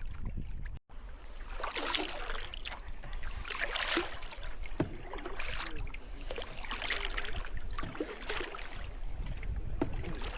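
Kayak paddle strokes in the water: a regular swish and splash about every one and a half seconds, over a steady low wind rumble. The sound cuts out briefly about a second in.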